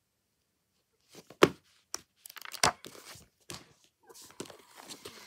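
Thin paperback children's books being handled, starting about a second in: covers and pages rustle and slide against each other, with two sharp knocks in the first half.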